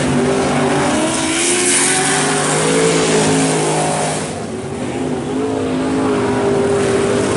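Several dirt-track race trucks' engines revving hard as they race through the turn and past, their pitches rising and falling over one another. The sound dips briefly about four and a half seconds in, then comes back up.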